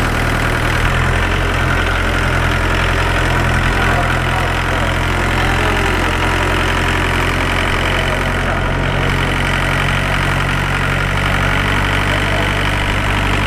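Iseki four-wheel farm tractor's diesel engine idling steadily.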